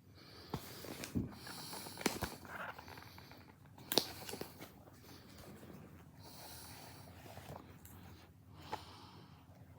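Books being handled and paged through: soft rustling of paper with a few light taps and knocks, the sharpest about four seconds in.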